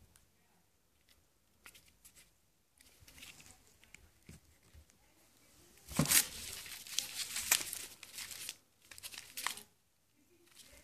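Plastic wrapping crinkling and cardboard rustling as a hand rummages through a packed box; faint handling ticks at first, then louder crinkling bursts for a few seconds past the middle.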